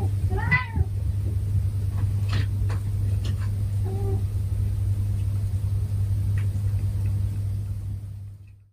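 A domestic cat meows once about half a second in, over a steady low hum; a fainter short call follows about four seconds in. The hum and everything else fade out near the end.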